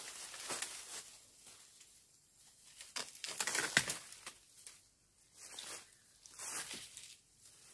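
Dry bamboo leaf litter crunching underfoot and bamboo stems and leaves rustling as someone pushes into a bamboo clump. It comes in irregular bursts of rustling with quieter gaps between.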